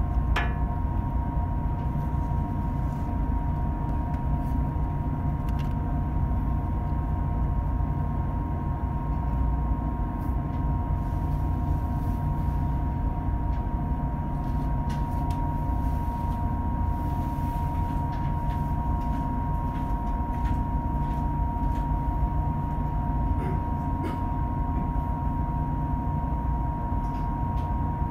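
Boat's engine running steadily: a low drone with a constant whine over it.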